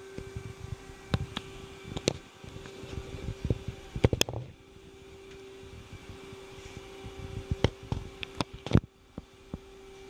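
Steady hum with a constant tone from a powered-up CNC lathe and its fans and drives, with scattered sharp clicks and knocks from handling close to the microphone.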